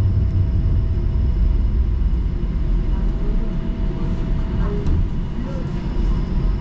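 Steady low rumble inside a moving TTC Flexity Outlook streetcar as it runs along its track. A faint steady whine in the first half fades out about halfway through.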